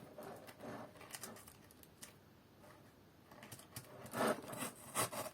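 Faint rustling and a few light clicks of hands handling skewered craft pieces and greenery, with two louder rustles about four and five seconds in.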